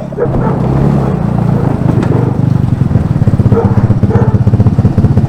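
150cc GY6 single-cylinder four-stroke scooter engine in a Power Wheels jeep running under throttle, loud, with its separate firing pulses heard as a fast chugging beat in the second half.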